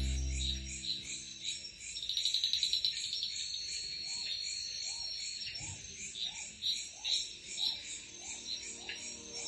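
Night chorus of crickets chirping steadily at a high pitch, with a fast high trill about two seconds in and lower frog calls repeating about twice a second from about four seconds on. A low held music note fades out within the first second.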